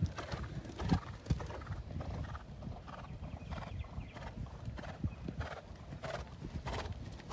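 Hoofbeats of a cantering horse, a continuous run of footfalls.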